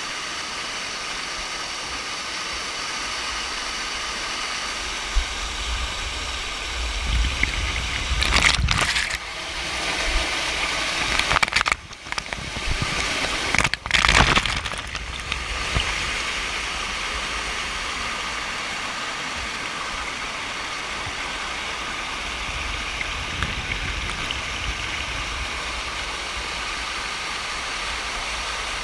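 Steady rush of a waterfall, with a stretch of louder low rumbling and knocks in the middle lasting several seconds.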